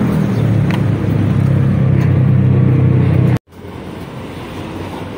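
A motor vehicle's engine running close by, a steady low hum, which stops abruptly about three and a half seconds in. Quieter street traffic noise follows.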